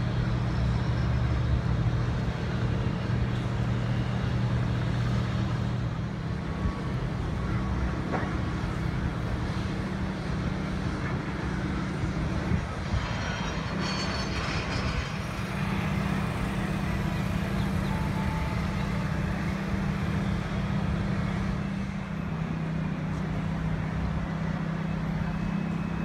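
Steady low hum of running engines over a wash of outdoor traffic-like noise, the pitch of the hum shifting slightly twice. A short burst of higher rattling comes about halfway through.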